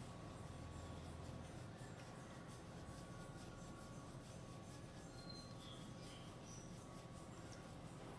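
Fingers rubbing and scratching through a cat's fur during a head massage: faint, scratchy strokes close to the microphone over a low steady hum.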